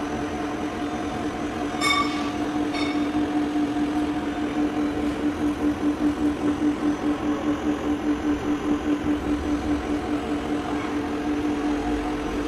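Servo-driven CNC roll bending machine running with a steady hum that pulses rhythmically, about three to four beats a second, through the middle. Two short ringing tones come about two and three seconds in.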